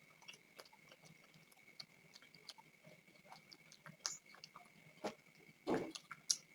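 People chewing and eating chicken with rumali roti: scattered small mouth clicks and smacks, with a louder thud a little before the end. A faint steady high tone hums underneath.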